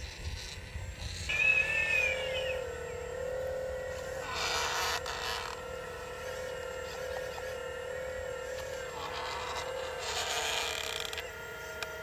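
Radio-controlled model excavator working in soil: a steady electric motor whine that wavers slightly as it works, with two longer bursts of rushing noise about four and nine seconds in as it moves.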